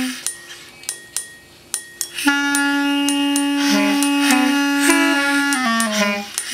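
Improvised clarinet line over light snare drum taps: after about two seconds of sparse taps, the clarinet holds one long note, then steps down through a few shorter notes near the end.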